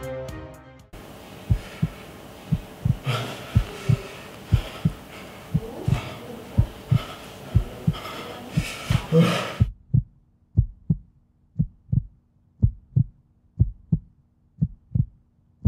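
Heartbeat sound effect: paired thumps about once a second. A faint hazy background lies under the first part and stops about ten seconds in, leaving the beats over a low steady hum.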